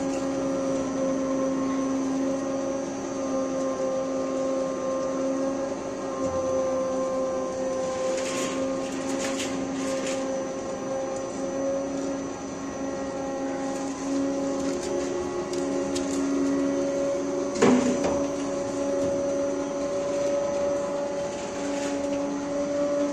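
Electric motor and screw of a soap plodder running with a steady hum while it presses soap into thin noodles. A few light clicks and rattles sound over it, with a sharper knock about 18 seconds in.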